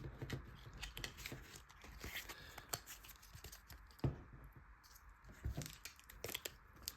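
Quiet handling of Pokémon trading cards and their packaging: faint rustles and small clicks, with a soft knock about four seconds in.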